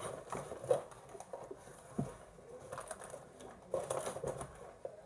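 Snack packages and wrappers being handled and packed away: scattered plastic rustles and light knocks at an irregular pace.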